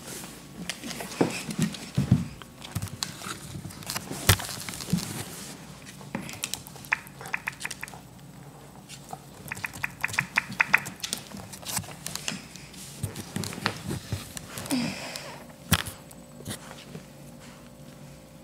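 A small white fluffy dog and a cat playfighting on a hardwood floor: scuffling and thumps with scattered sharp knocks, and a quick run of clicks about halfway through.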